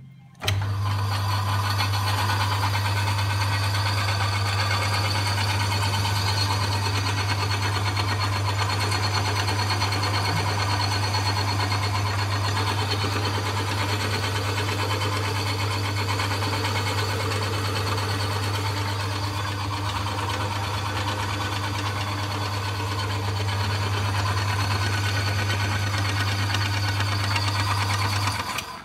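Myford 7-inch metalworking lathe running with its chuck spinning: a steady motor hum with the whir of the drive. It starts abruptly just after the beginning and cuts off near the end.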